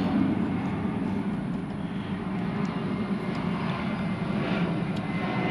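A steady, low engine-like drone with no clear changes.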